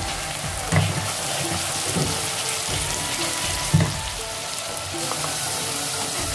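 Onion-tomato masala sizzling steadily in hot oil in a pan while ground spices are stirred in with a silicone spatula, with two dull knocks, about a second in and again near four seconds.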